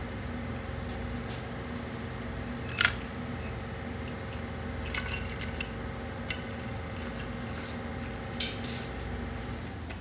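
Metal tools and engine parts clinking and knocking about five times, the loudest clank about three seconds in, over a steady machine hum.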